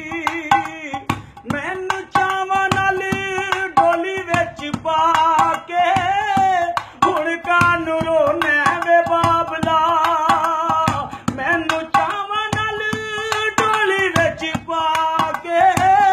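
Punjabi folk song music: a held, wavering melody line over steady hand-percussion strokes.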